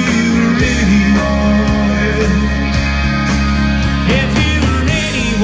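Live country band playing an instrumental passage right after the last chorus: electric guitar bending notes over steady bass and drums.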